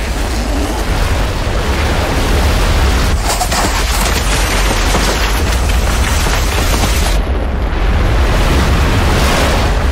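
Continuous deep rumbling roar of explosions and a snow avalanche, loud throughout, with crashing noise over a heavy low rumble.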